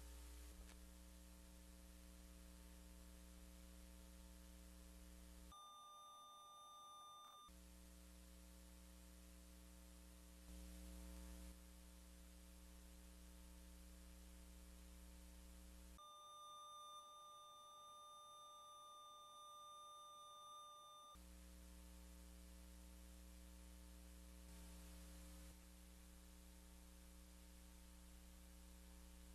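Near silence: a faint steady electrical hum, the empty soundtrack of a silent video. Twice the hum gives way to a faint steady high-pitched tone: for about two seconds around 6 s in, and for about five seconds from 16 s in.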